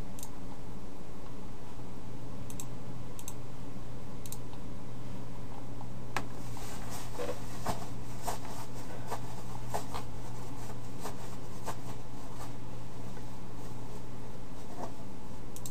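Scattered light clicks and taps from a computer keyboard and mouse, most of them from about six seconds in, over a steady low hum and hiss from the recording setup.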